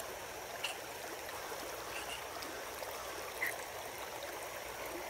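Mountain creek running over rocks, a steady rush of water, with two small clicks about a second in and again near the middle.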